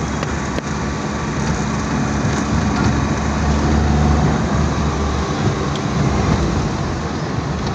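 Steady engine hum and road noise heard from inside the cabin of a moving vehicle, growing slightly stronger about four seconds in.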